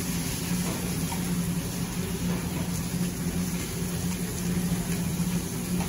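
Steady low hum with a constant rushing noise from commercial kitchen equipment.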